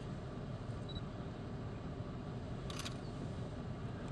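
Low steady rumble of an idling vehicle, with one short sharp click a little before three seconds in.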